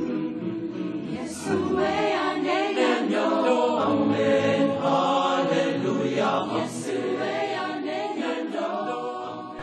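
A cappella choir singing in several voice parts, dying away near the end.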